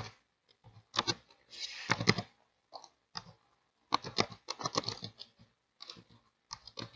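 Computer keyboard typing: irregular bursts of sharp keystroke clicks as a word is typed.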